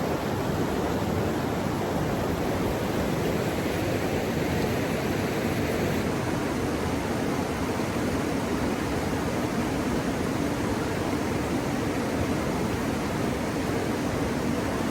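Steady rushing of river water where the Rio Grande and the Red River meet: a constant, even noise with no breaks.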